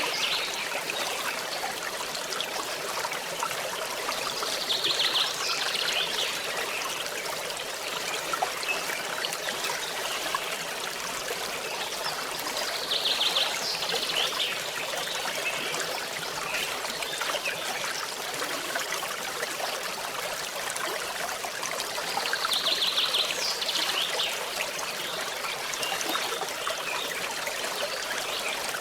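Forest stream trickling and babbling steadily. A short, high trill from an animal call cuts through the water about three times, roughly every eight to ten seconds.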